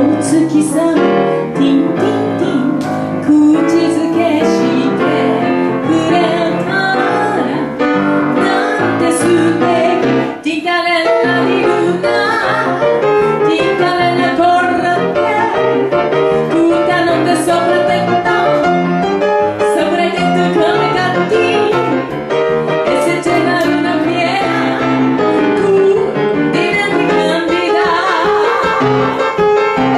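A woman sings a song into a microphone, accompanied by a grand piano.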